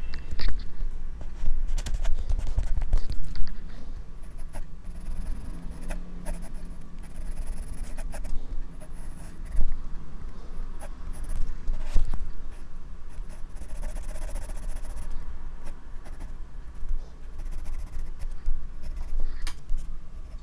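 Graphite pencil scratching and scraping on drawing paper in short, irregular strokes, picked up very close by a microphone worn on the drawing wrist, with low rumble and knocks from the hand's movement.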